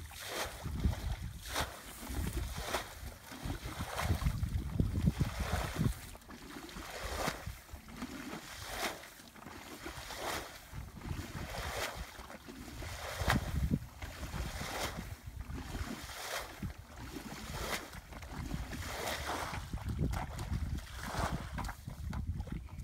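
Wind rumbling on the microphone, with repeated short splashes and swishes from wading and groping by hand in a muddy rice-field ditch and its wet grass.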